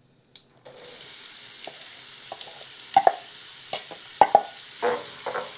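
Diced onion hitting hot melted lard in a stainless steel pan, sizzling at once from about half a second in and frying steadily. A few sharp knocks of the metal bowl against the pan come about three and four seconds in.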